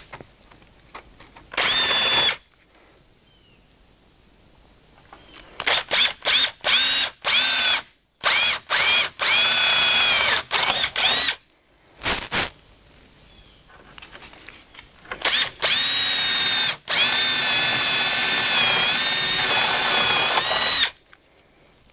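Cordless drill with a half-inch spade bit boring through plywood. It runs briefly, then in a string of quick trigger pulses, then in two longer steady runs near the end.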